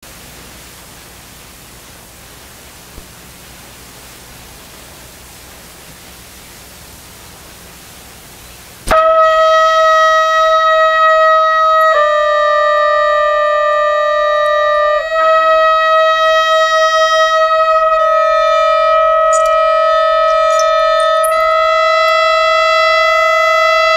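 Steady hiss for about nine seconds, then a wind instrument comes in suddenly with long held notes, moving to a new pitch about every three seconds.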